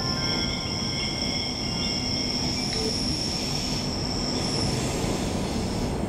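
Queensland Rail electric suburban train running, heard from inside the carriage: a steady rumble of wheels on the track with a high, steady wheel squeal that stops about five seconds in.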